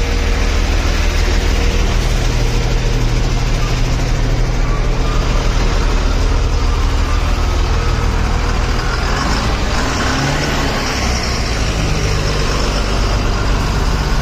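Truck engine running steadily under road noise, its pitch changing about two seconds in and again around the ten-second mark.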